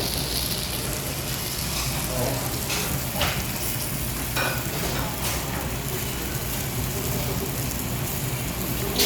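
Food cooking hot on the stove: a steady sizzling, bubbling hiss broken by a handful of sharp pops and crackles, the loudest about three seconds in and near the end.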